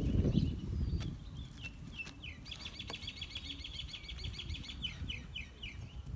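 A small bird sings a fast, even trill of high notes for about three seconds, starting about two seconds in, with scattered single chirps around it. A low rumbling noise in the first second and a few light clicks lie beneath.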